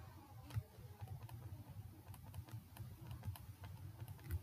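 Faint, irregular light clicks and taps of a stylus tip on a digital writing surface as letters are handwritten stroke by stroke.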